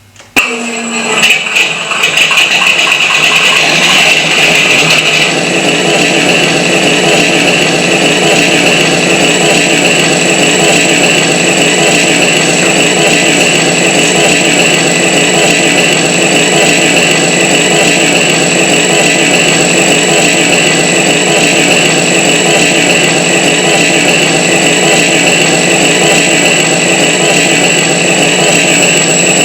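Radio-controlled AT-6 Texan model plane's engine sound coming on suddenly about half a second in, uneven for the first couple of seconds, then running steadily at one setting, like an engine idling, with a steady high whine over it.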